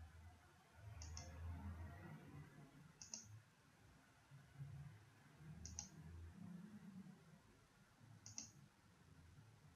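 Computer mouse button clicking four times, a couple of seconds apart, each a quick press-and-release double click, over a faint low rumble.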